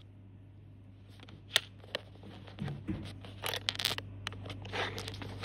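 Plastic Lego pieces being handled and snapped together: a couple of sharp clicks, then scraping and rustling, over a low steady hum.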